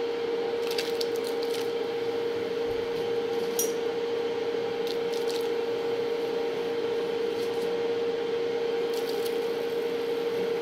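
Steady hum of an induction cooktop heating a pot of water, with scattered light clicks and knocks as cauliflower florets are dropped into the pot.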